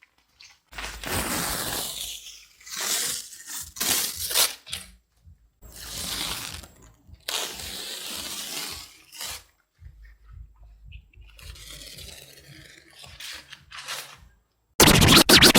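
Masking tape being peeled off a wall of painted concrete stones: scratchy tearing noises in several short spells, cut apart by edits, with the loudest rip near the end.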